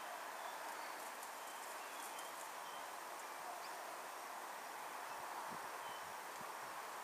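Faint short bird chirps, scattered and high-pitched, over a steady background hiss.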